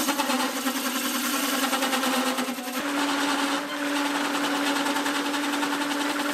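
Drill press spinning a circle cutter through MDF board: a steady motor hum with a rapid, even chatter as the single blade scrapes its circular groove on each turn.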